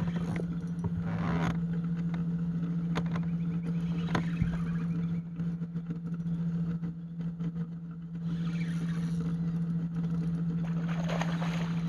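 Boat motor running with a steady low hum, and a few sharp clicks or knocks in the first half.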